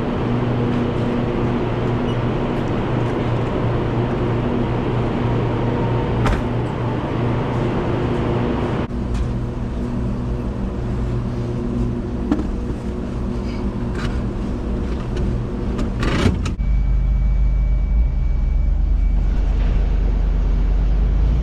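A motor vehicle engine running steadily, with a few sharp clicks. About sixteen seconds in the sound changes abruptly to a deeper, heavier rumble.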